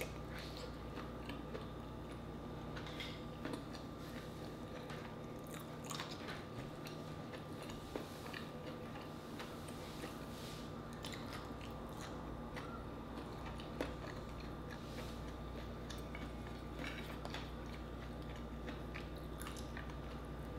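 Close-up chewing and biting of a mussel meat, with wet mouth clicks and smacks scattered throughout. A faint steady hum runs underneath.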